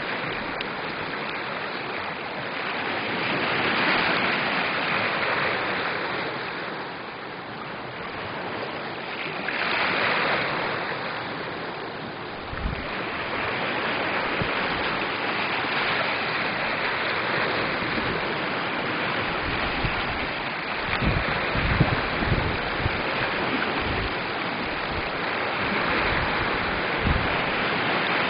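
Small lake waves washing and lapping over a sandy, pebbly shore, the wash swelling every few seconds. Short low rumbles of wind buffeting the microphone come in the second half.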